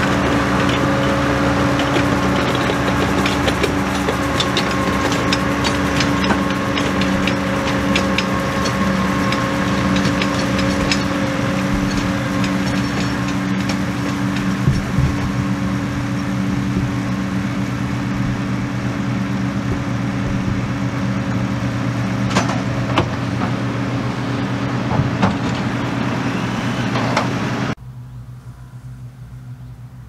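Case 130 tractor engine running steadily under load while pulling a working McHale V660 round baler, with scattered clicks and rattles from the baler. Near the end the sound drops suddenly to a quieter, farther-off low engine hum of a John Deere 1188 combine harvester.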